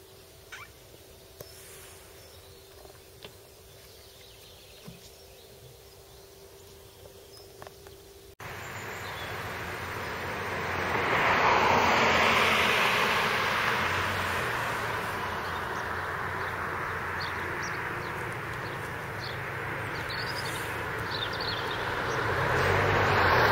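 Faint steady hum with a few light ticks, then an abrupt change to road traffic noise: a vehicle passing swells loudest about a third of the way in, and steady traffic noise continues after it.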